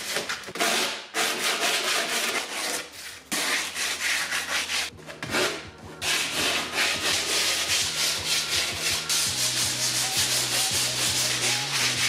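Cured fiberglass being hand-sanded with a sanding block: quick back-and-forth scratchy rubbing strokes, breaking off briefly a few times.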